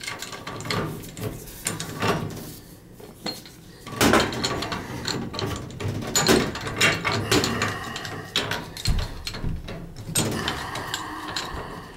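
Wrenches working on the boiler's gas pipe union as it is made up and tightened: irregular metallic clanks, clicks and scrapes, with a denser cluster of knocks about four seconds in and again near six seconds.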